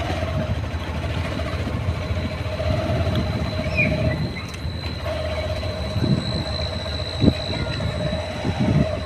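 A motor vehicle running steadily as it moves along a road: a continuous low rumble with an on-and-off mid-pitched drone and a faint high whine above it. A single thump about seven seconds in.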